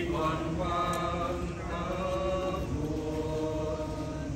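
Voices chanting a Vietnamese acclamation to the Virgin Mary in long held notes, phrase after phrase.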